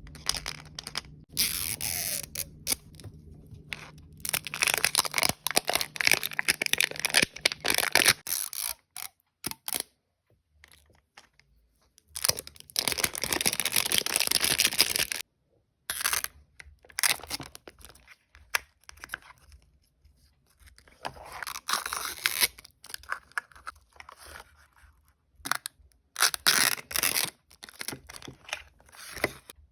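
The plastic packaging of a Mini Brands capsule being torn and crinkled open by hand. The tearing and rustling come in bursts of a few seconds with short pauses between, with a longer pause about nine seconds in.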